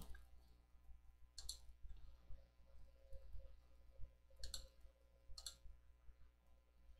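A few faint computer mouse clicks, about three, over near-silent room tone.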